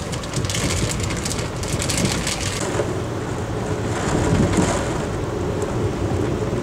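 Interior of an Amtrak Hiawatha passenger coach rolling through heavy rain: a steady low rumble from the train with rain spattering on the car. A dense run of sharp ticks over the first two or three seconds, then a steadier hiss.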